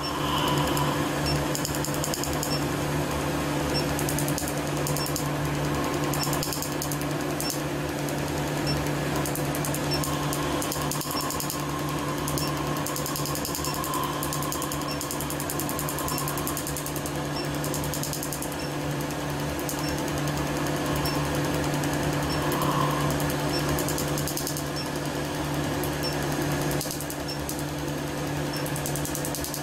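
Q-switched tattoo-removal laser firing rapid pulses on the skin: a fast, steady run of snapping clicks over the steady hum of the laser unit.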